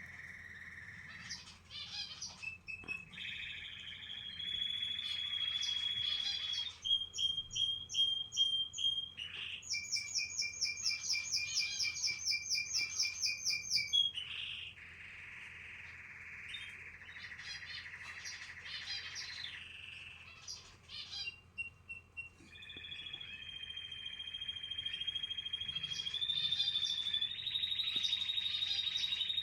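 Canary chirping almost without pause in high, rapid trills of repeated notes, loudest in a fast run in the middle and growing louder again near the end.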